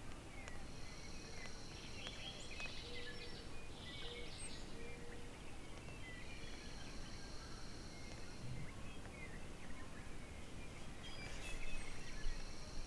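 Wild songbirds calling over a quiet outdoor background hiss: a high trill that comes three times, with many short chirps between.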